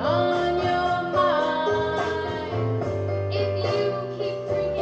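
A woman singing long held notes into a microphone over a backing track with a steady beat.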